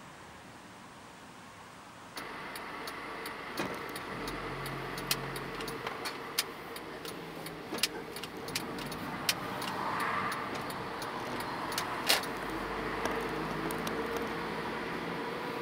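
City street ambience: steady traffic noise with vehicles passing and scattered sharp clicks, louder after about two seconds.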